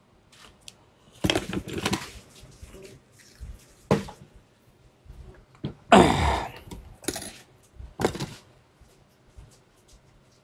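Short metallic clinks and scrapes from steel hook wire and a pair of pliers being handled against a grinding stone, about half a dozen separate sounds with the loudest a little over halfway through.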